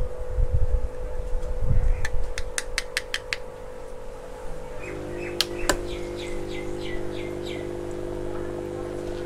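Steady hum of a small aquarium air pump aerating a brine shrimp hatchery bottle, with low handling bumps near the start and a quick run of light clicks. A small bird chirps a rapid series of about six short falling notes just after the middle.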